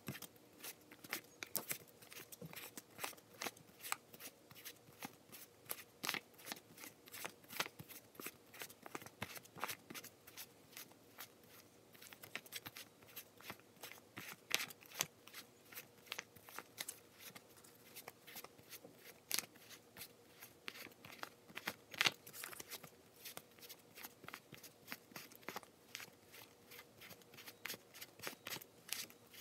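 A stack of paper dollar bills being counted out by hand, each note flicked off the stack with a crisp papery snap, a few snaps a second at an uneven pace.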